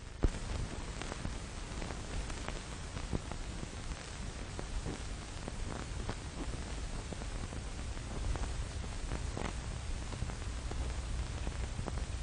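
Surface noise of an old optical film soundtrack: a steady hiss with scattered crackles and pops and a low hum underneath. The loudest pop comes about a quarter second in.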